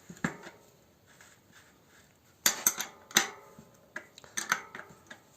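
Two 15 mm spanners clinking against each other and the bicycle's front axle nuts as the nuts are loosened to take the wheel off: scattered sharp metallic clinks, loudest in a cluster about two and a half to three seconds in, with a few more about a second later.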